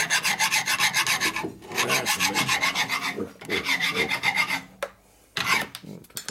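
A large hand file rasping in quick back-and-forth strokes, cleaning up the edge of a shaft. The strokes come in three runs with short pauses between them, then a brief last few strokes near the end.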